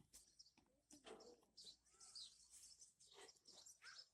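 Faint bird chirps: many short, high calls scattered through the quiet.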